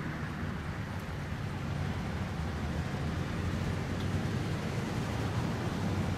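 Road traffic noise: a steady low engine rumble from passing or nearby vehicles, with no siren tone.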